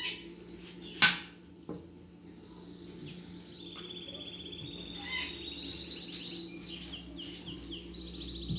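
Kitchen knife cutting chayote on the counter: one sharp knock about a second in and a few softer clicks. Behind it a bird chirps high and trills rapidly, from about a third of the way in and again near the end.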